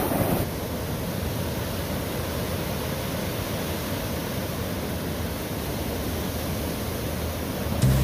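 Ocean surf breaking and washing on a beach: a steady, even rushing noise.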